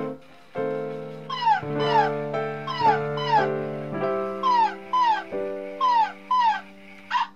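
Plush spaniel puppy toy making short, high, falling yips, mostly in pairs about half a second apart, over background music with held chords.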